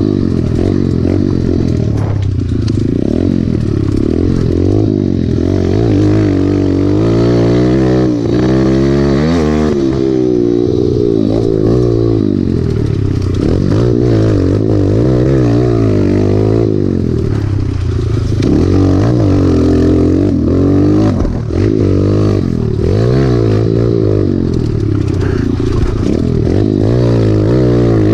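Small single-cylinder four-stroke Kawasaki KLX trail bike engine being ridden hard, its pitch rising and falling without a break as the throttle opens and closes, with a brief drop in revs about two-thirds of the way through. Rattling and scraping of the bike over rough ground go with it.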